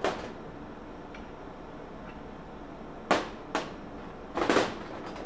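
Sharp knocks and clinks of hand tools and metal parts being handled while the belt-driven electric motor is unbolted from a two-stroke golf cart engine. There is one knock at the start, two about half a second apart around three seconds in, and a short clatter about a second later.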